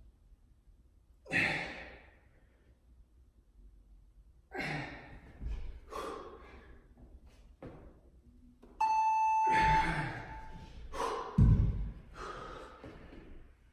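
Hard exhaled breaths during dumbbell plank rows, with dumbbells thudding down on a rubber gym floor, the loudest thud shortly after the middle. An interval timer beeps once a little past the middle, a steady tone lasting about a second.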